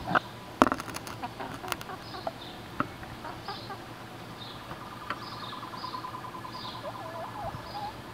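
Silkie chickens clucking softly in short wavering calls, a few together near the end, with a few sharp clicks in the first two seconds.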